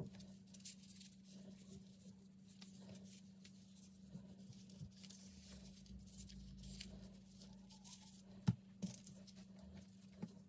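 Soft crinkling and rustling of disposable plastic gloves handling and tying strips of soft dough, with scattered light ticks and one sharp knock about eight and a half seconds in, over a steady low hum.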